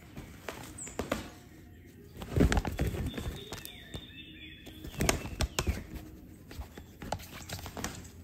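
Fabric cat tunnel rustling and flapping as a cat rolls and swipes about inside it, with quick scuffs and soft knocks. The two loudest flurries come about two and a half and five seconds in.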